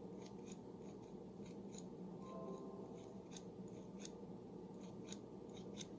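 Faint, irregular snips of scissors cutting slits into bread dough, a few clicks a second, over a low steady room hum.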